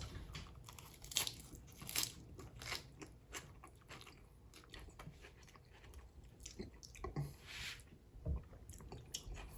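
A man chewing a mouthful of lettuce and vegetables: quiet, irregular crunches. The lettuce is a little wilted and not really crisp.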